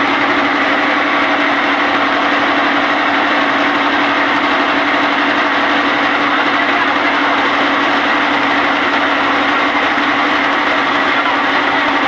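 Motorboat engine running steadily, heard from on board: a constant low hum over a dense mechanical clatter, with no change in speed.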